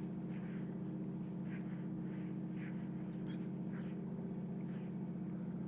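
Fishing boat's engine running steadily: a low, even hum. Faint soft scrapes come and go every second or so over it.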